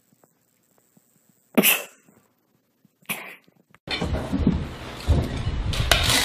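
A kitten sneezing twice, a loud sharp sneeze about one and a half seconds in and a smaller one about a second and a half later. About four seconds in, loud music starts.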